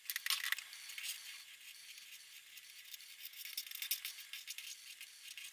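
Marker pen scratching on paper in quick, irregular strokes, with a dense flurry of strokes about a fraction of a second in.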